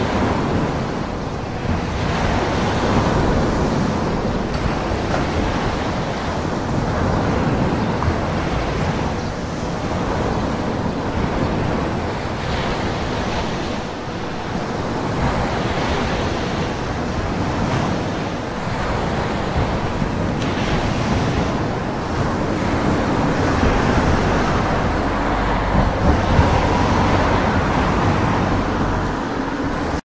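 Ocean waves breaking as continuous surf, a steady rush with a deep rumble that swells and eases slowly, a little louder near the end.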